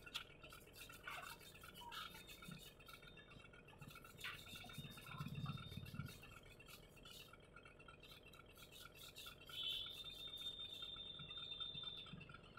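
Faint rubbing of a cloth wiping the glass face of a phone's LCD panel, with scattered light clicks and a slightly louder stretch of rubbing about five seconds in.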